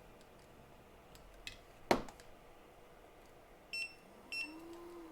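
JBC hot-air rework station beeping twice, short high beeps a little over half a second apart, as its start button is pressed while the station fails to start properly. A faint hum rises and falls in pitch near the end, and a sharp click comes about two seconds in.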